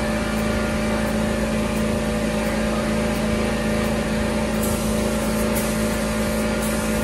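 An air compressor runs with a steady, constant hum, feeding an air paint spray gun that hisses in a few short bursts in the last couple of seconds as it is triggered.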